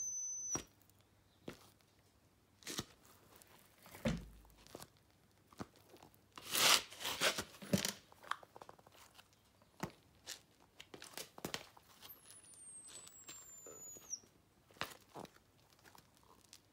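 Foot shifting inside a wet rubber clog: scraping, crackling rubs of rubber against skin, loudest about seven seconds in. A high squeak sounds just at the start, and a longer squeak slides down in pitch about twelve seconds in. This is the mystery squeaking, coming from the rain-wet shoe.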